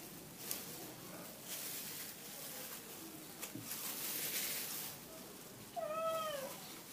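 Kitchen scissors snipping through dry leftover flatbread, a series of crisp cuts with crackling. A cat meows once near the end, one call that rises and falls in pitch, the loudest sound here.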